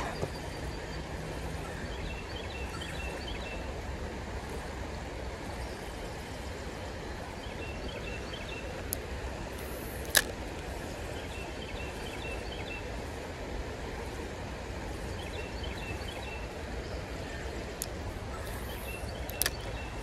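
Steady rush of creek water over a shallow riffle, with a small bird's short chirping phrases every few seconds and a few sharp clicks, the loudest about halfway through and another near the end.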